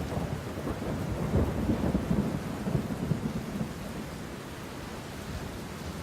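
Low, crackling rumble of thunder over a steady rain-like hiss. The rumble is strongest from about a second in to past the middle, then eases into steady hiss.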